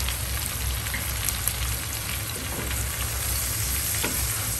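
Shrimp sizzling in a pan of butter sauce: a steady hiss with scattered small pops, over a low rumble.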